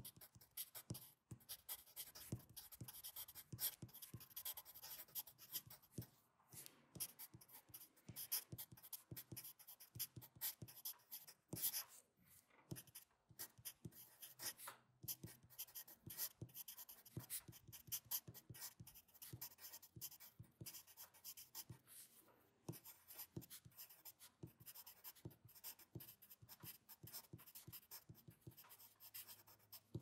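Faint scratching of writing on paper: quick, irregular strokes with short pauses between them.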